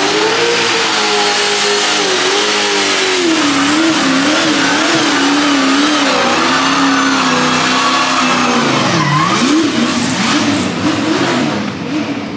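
A 1,000-horsepower drift car doing donuts, its engine held high in the revs with the pitch wavering as the throttle is worked, over the hiss of rear tyres spinning and smoking on asphalt. About three-quarters of the way through the revs drop sharply and climb straight back, and near the end the sound falls away.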